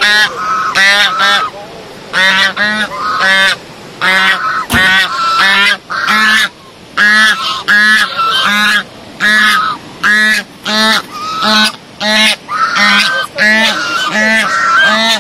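A flock of birds calling loudly and repeatedly, many short honk-like calls in quick succession, often overlapping.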